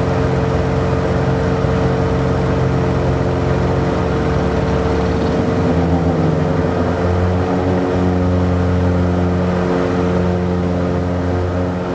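Piper Seminole's twin piston engines and propellers droning steadily as heard inside the cabin, a hum of several steady tones; the lower tones shift about halfway through.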